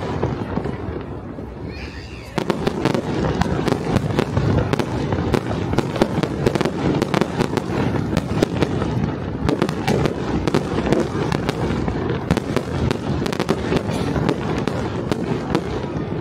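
Fireworks going off in a dense, continuous barrage of bangs and crackles, growing louder and thicker about two and a half seconds in.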